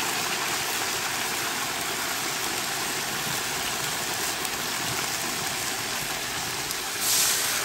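Pork shanks sizzling and bubbling in a shallow layer of deglazing liquid in a large pot on a gas burner: a steady hiss, briefly louder and brighter near the end.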